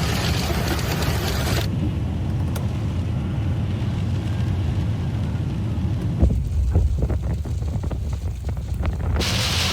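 Strong storm wind rumbling and buffeting the microphone, a steady low noise. The sound changes abruptly about two seconds in and again near the end, with a few thumps in the middle.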